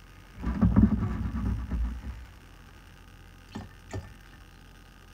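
White vinegar glugging out of a plastic gallon jug into a glass jar for about two seconds, with the low pulsing gulps of a jug pouring, then two light clicks near the end.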